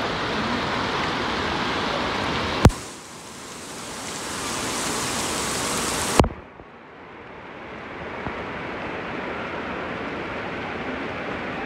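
Water pouring and splashing steadily, a water-park spray falling onto an inflatable pool float and the pool around it. Two sharp clicks break it, about two and a half and six seconds in. Each time the rush dips and then builds back, and after the second it sounds duller.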